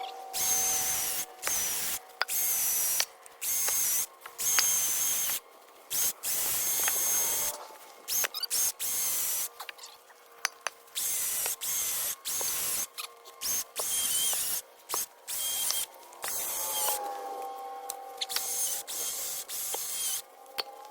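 A chainsaw running and cutting through felled tree trunks, its noise starting and stopping abruptly in short chunks. Twice the engine's pitch drops and then holds steady: once at the start and again about two-thirds of the way through.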